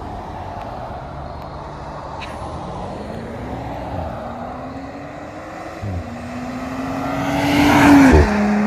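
2018 Audi S5 Sportback's turbocharged V6 accelerating hard through the gears: its pitch climbs, drops at upshifts about four and six seconds in, then climbs again to its loudest before another shift near the end.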